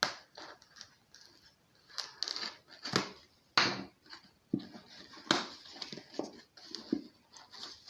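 Packaging being opened by hand: irregular rustling, crinkling and scraping of a small box and its wrapping, in short uneven bursts.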